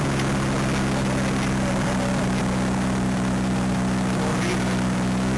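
Quicksilver MXII Sport ultralight's engine and propeller running at a steady speed, with wind noise over it.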